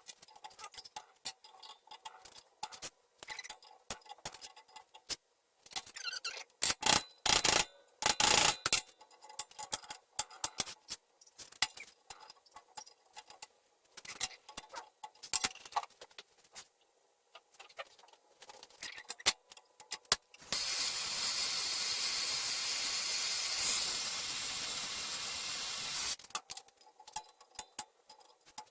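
Hammer and chisel work on a steel brake slave cylinder: small metal clinks and taps, with a cluster of hard hammer blows about seven to nine seconds in. A steady hiss starts about twenty seconds in and runs for roughly five seconds.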